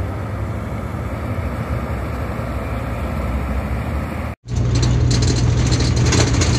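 Diesel engine of a Hino dump truck running as the truck drives along a haul road, a steady low drone. About four seconds in the sound cuts out briefly and switches to a louder engine drone with road and wind hiss, heard from inside a vehicle driving through dust.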